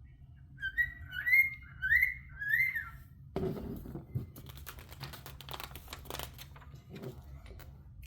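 Four short whistled notes in quick succession, each rising then falling in pitch. After them comes a run of light clicking and rattling from loose plastic Lego pieces being handled.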